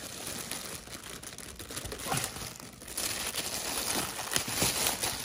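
Thin plastic carrier bag crinkling and rustling as its knotted handles are pulled apart and untied, getting louder about three seconds in.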